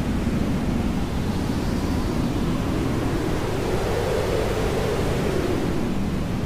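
Hair dryer running steadily as white noise: a deep, even rush of air with no breaks, its tone slowly rising and falling.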